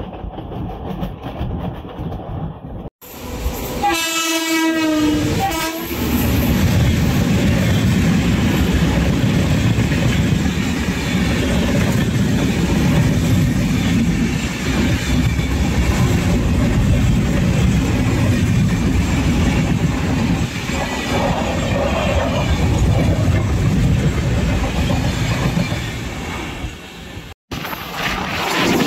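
A passing electric locomotive's horn sounds about four seconds in, its pitch dropping as it goes by. It is followed by the long, steady rumble and wheel clatter of an express train of LHB coaches passing close by on the next track, heard from a moving train.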